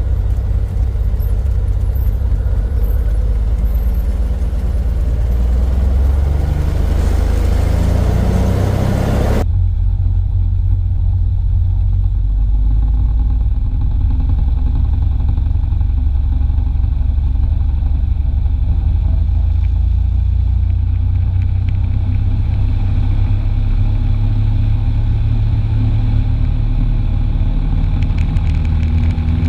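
Cessna 182's six-cylinder Continental O-470 engine and propeller running loud at takeoff power, the pitch climbing shortly before a hiss over it drops away abruptly about nine seconds in, leaving a steady engine drone.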